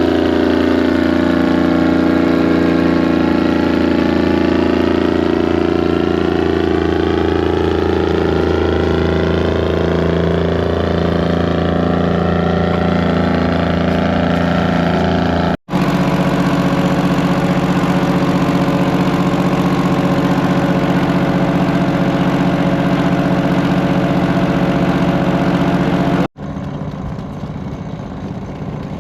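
Large tractor engine running at a steady idle, loud and even. The sound jumps at two edits, and the last few seconds are quieter.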